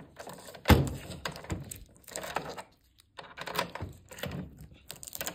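A heavy thunk about a second in as a coffee vending machine's front door is pressed shut, then a run of small clicks and rattles from a key being worked in its lock.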